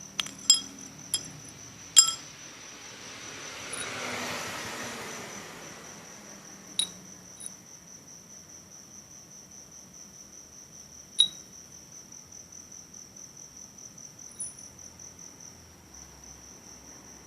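A cricket trilling steadily in the background, with a few sharp metallic clinks. A hiss swells and fades about three to six seconds in.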